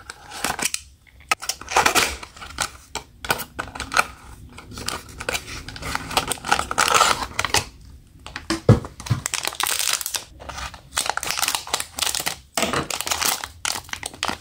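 Packaging being handled: a cardboard blind box slit open with a small box cutter, then a foil blind bag crinkling in the hands and being torn open near the end.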